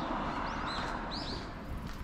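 Small birds giving short, repeated chirps over a steady road hiss that fades away.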